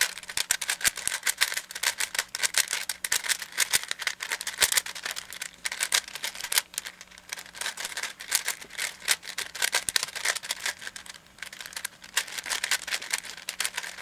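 Plastic layers of a 4x4 Rubik's Cube (Rubik's Revenge) being turned in quick succession, making a dense, irregular run of clicks and clacks.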